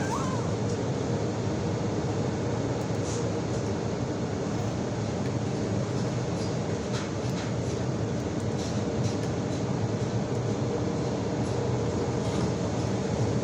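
A steady mechanical hum over a low rumble, with a few faint ticks.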